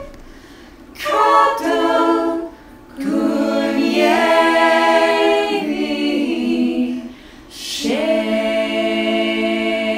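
A small group of voices singing a cappella in harmony, without instruments: three held phrases, starting about a second in, at three seconds and near eight seconds, with short breaths between.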